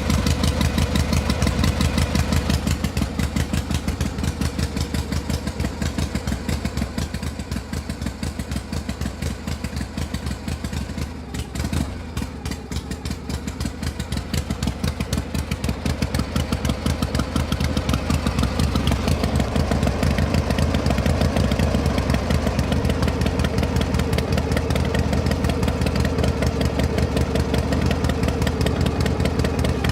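A vehicle engine running steadily with an even, fast pulsing beat. It drops a little in level a few seconds in, dips briefly just before the middle, and comes back up to its earlier level about two-thirds of the way through.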